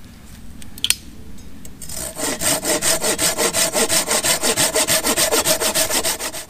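Hand saw cutting through a log with quick, even back-and-forth strokes, starting about two seconds in. A single click comes shortly before.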